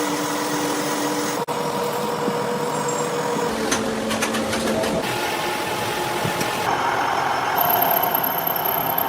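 Workshop machinery running: a steady mechanical noise with humming tones that changes abruptly several times.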